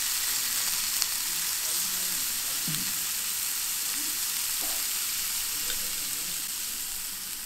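Thick slices of beef tongue sizzling steadily in a small black pan on a tabletop burner, with a single light click about a second in.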